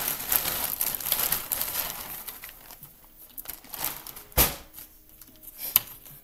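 Plastic shopping bag rustling and crinkling as a hand rummages inside it, then a sharp knock about four seconds in and a lighter click near the end.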